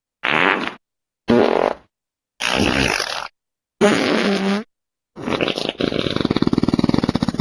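A run of Furby Boom fart sound effects, five short clips one after another, each cut off into dead silence. The last is the longest, a rapid buzzing flutter lasting about two seconds.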